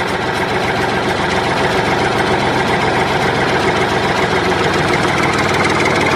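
Tractor engine idling steadily with a fast, even chugging pulse, a sound effect laid over a toy tractor being pushed by hand.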